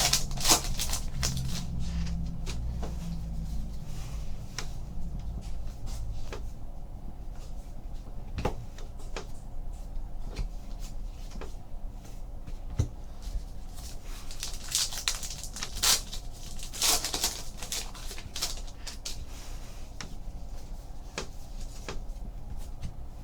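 Handling sounds of a trading card box being opened: scattered clicks and knocks of cardboard and cards, with short crinkling, tearing rustles of pack wrappers, the loudest at the start and again about fifteen seconds in.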